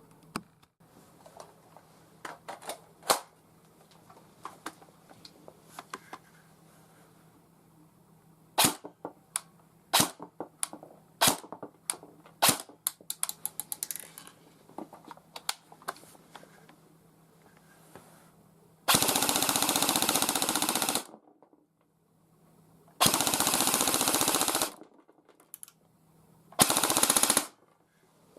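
S&T HK416 electric airsoft gun firing three full-auto bursts, the first two about two seconds long and the last under a second, its gearbox cycling rapidly. Before them come scattered sharp clicks and knocks.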